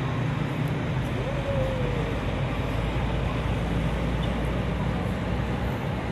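Steady low drone of a running vehicle, with engine hum and road noise.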